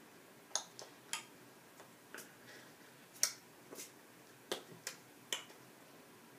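About a dozen short, sharp clicks or snaps at irregular intervals, the loudest about three seconds in.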